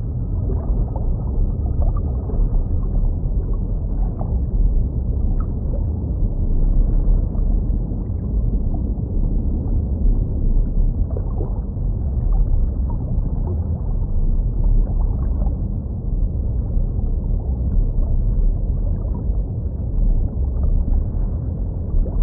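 Muffled underwater water ambience: a steady low rumble with faint scattered bubbling sounds.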